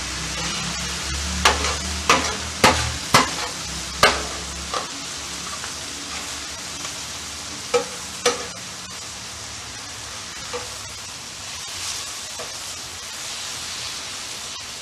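Skirt steak, peppers and onions sizzling on a hot flat-top griddle, with sharp clinks and scrapes of a metal spatula and tongs on the griddle plate: several in the first four seconds, two more about eight seconds in.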